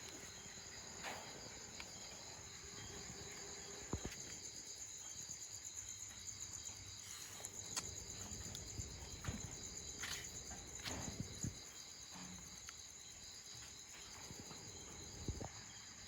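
Steady high-pitched chorus of crickets trilling, with a few soft knocks scattered through it.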